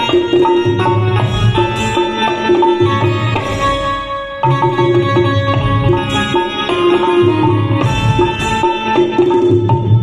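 Live instrumental Indian-style music: a dholak hand drum keeping a rhythm under sustained melody notes from a Roland electronic keyboard, with a short break in the drumming near the middle.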